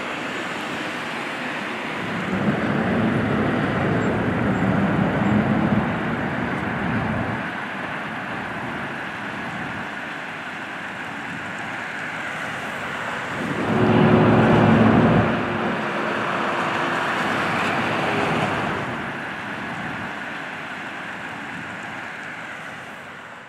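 Road traffic passing: cars go by with engine and tyre noise, one pass swelling about two seconds in and a louder, shorter one around fourteen seconds in, then fading away at the end.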